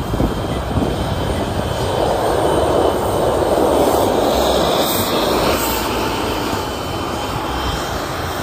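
Main battle tank driving through snow: a loud, steady engine and track noise that swells around the middle as the tank passes close by.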